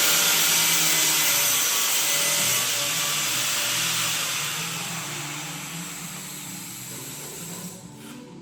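Power saw cutting trim: a loud, even grinding hiss that gradually fades and drops away near the end.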